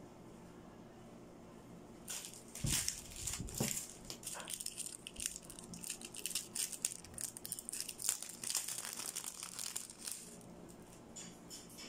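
A clear plastic bag crinkling and crackling as it is handled and opened, starting about two seconds in and stopping shortly before the end. There are a couple of dull knocks near its start.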